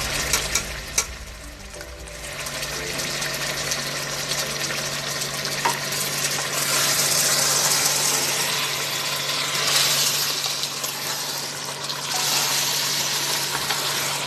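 Chicken, onions and tomatoes sizzling in oil in a cooking pot, as ginger-garlic paste goes in. The hiss stays steady and gets louder about six seconds in. A few sharp clicks come near the start.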